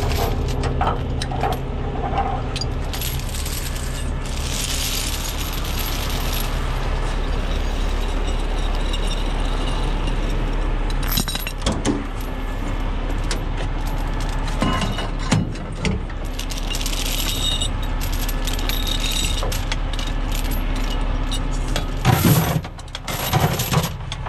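Heavy steel tow chains clinking and rattling as they are dragged and hung up in a tow truck's chain compartment, over a truck engine idling steadily. The loudest clatter of chain comes near the end.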